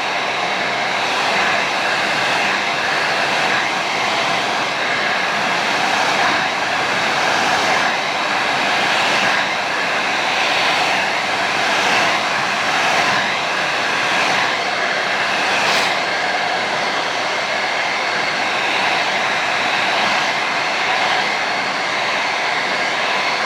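Handheld blow dryer running steadily, a constant rush of air with slight swells every second or two.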